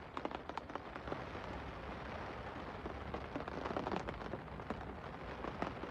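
Steady rain falling on a lake, a constant hiss dotted with many sharp ticks of individual drops close by.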